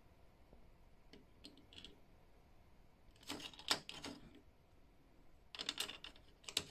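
Vintage toy action figures clicking and clattering against one another and the tiled tabletop as they are handled and set down, in two short flurries about three and five and a half seconds in.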